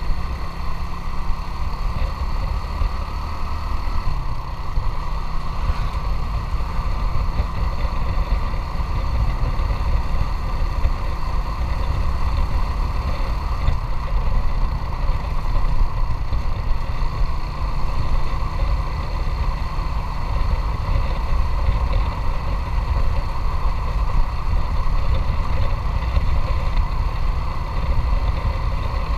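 Motorcycle engine running steadily while riding, under a heavy low rumble.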